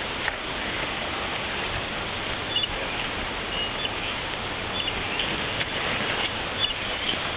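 Steady, even hiss of background noise, with a few faint short high chirps and light clicks.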